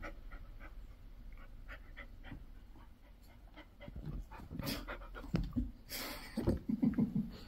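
Dog panting in quick, regular breaths, with louder rough bursts of noise in the second half as the dog plays.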